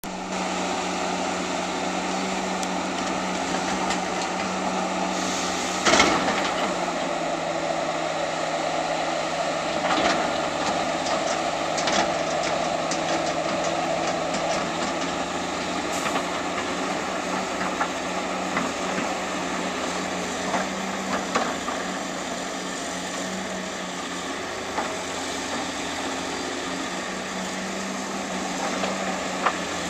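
Diesel engine of heavy demolition machinery running steadily, with sharp knocks and clanks of broken concrete being handled, the loudest about six seconds in and others near ten and twelve seconds.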